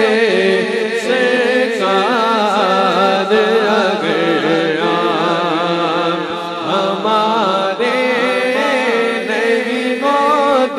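A man singing a naat, an Urdu devotional song in praise of the Prophet, into a microphone, in long held notes that bend and waver in pitch.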